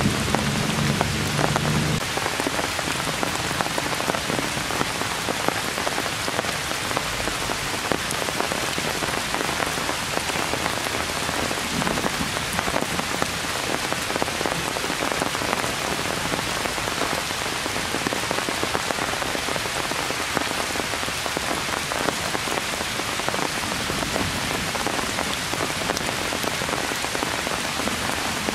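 Heavy rain falling steadily on forest leaves and branches, a dense, even patter of drops. A low rumble dies away about two seconds in.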